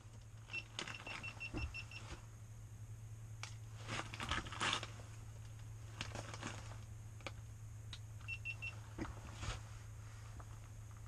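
Fish-finder sonar unit beeping: a quick run of about seven short high beeps, about five a second, then three more near the end, signalling a fish mark under the hole. Light clicks and rustling handling noise come in between, over a low steady hum.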